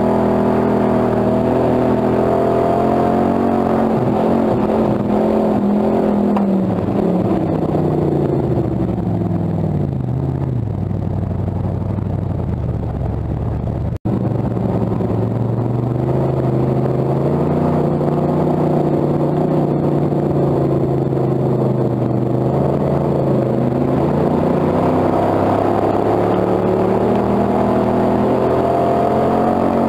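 Hobby stock dirt-track race car's V8 engine, heard from inside the cockpit. Its note falls steadily over the first ten seconds as the car slows, cuts out for an instant about halfway, then runs lower and steady before the revs climb again near the end.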